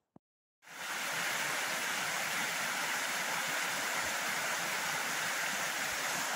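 Steady rush of running water, starting abruptly about half a second in after a single click and a moment of silence, then holding an even level.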